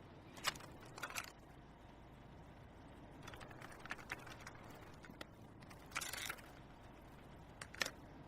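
Quiet gap with a low steady hum and a few scattered faint clicks and taps.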